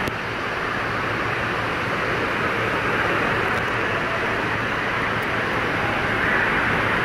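Steady, loud, echoing din of an indoor water park hall, with rushing water and general background noise and no single sound standing out.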